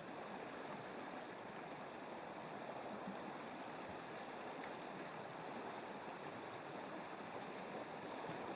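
River water flowing, a steady, faint rushing with no change.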